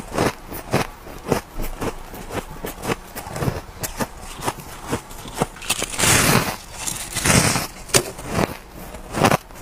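Shaved ice being chewed: a quick run of sharp crunches, with two longer, louder crunches about six and seven seconds in.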